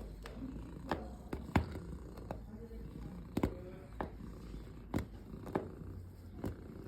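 Domestic cat purring as a steady low rumble, with sharp clicks over it at about one or two a second.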